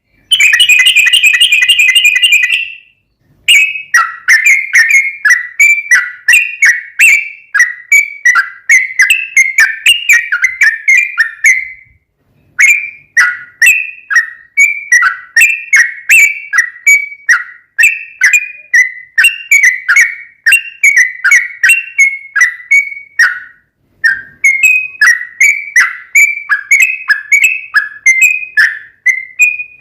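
Yellow-vented bulbul (trucukan) singing in long rapid runs ('ropel panjang'). It opens with a short, fast continuous trill, then repeats quick downslurred chirps, about three to four a second, with two brief pauses partway through.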